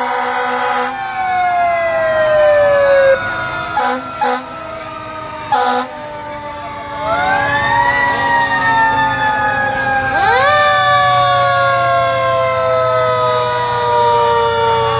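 Fire truck sirens: one long wail falling slowly in pitch, then rising again twice and slowly falling away. Horn blasts are mixed in: a long one ends about a second in, and short ones come at about four and five and a half seconds. A low truck engine rumble grows near the end.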